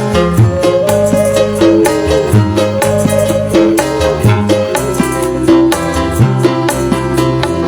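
Dangdut band playing an instrumental passage: a bass line in a steady repeating pattern with shaken and struck percussion, under a held, slightly wavering melody line.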